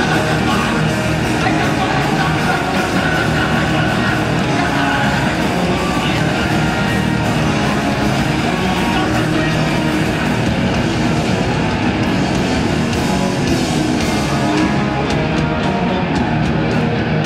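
Hardcore punk band playing live through a PA: electric guitars, bass and drums, loud and unbroken.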